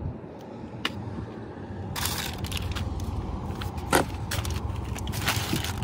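Brown packing paper crinkling and rustling as it is handled, over a low rumble of wind on the microphone, with a sharp knock about four seconds in.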